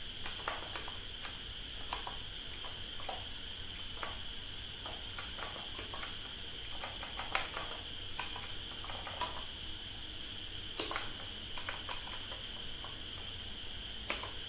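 Computer keyboard keys clicking irregularly as a line of code is typed, over a steady high-pitched tone in the background.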